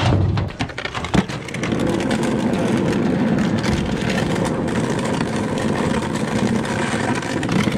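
An engine running steadily, with a sharp knock about a second in.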